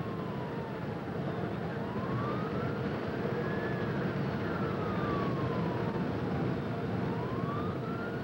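Police car siren on a slow wail, its pitch sliding down and up again about once every five to six seconds. It is heard from inside the speeding patrol car, over steady engine and road noise.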